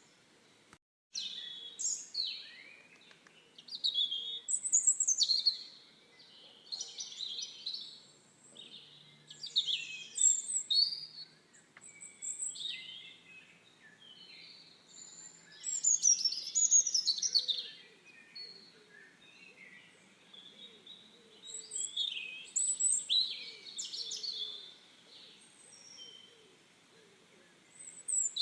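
Songbirds chirping and warbling in short high-pitched phrases, with pauses of a second or two between bursts; the sound cuts out completely for a moment about a second in.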